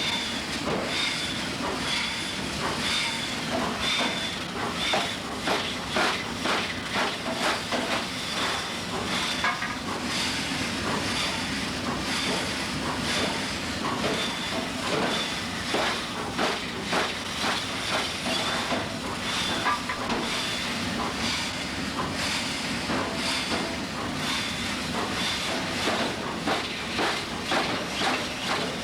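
Hammer blows on metal at an anvil, in irregular runs of several strikes a second with a faint ring between them, over a steady hiss.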